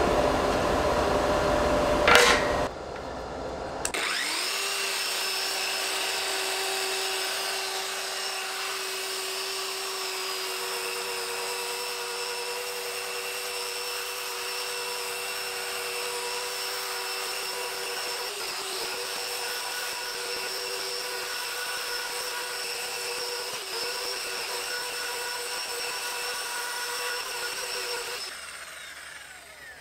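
Handheld burnisher (belt drum sander) spinning up about four seconds in and running steadily with its abrasive wheel on a metal sheet, a steady whine with a few held tones, then winding down near the end. Before it starts there is a louder rushing noise with a knock about two seconds in.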